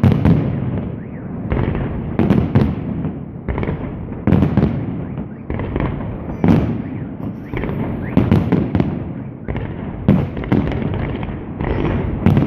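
Fireworks display: aerial shells bursting in quick succession, about one boom a second, each followed by a rolling rumble.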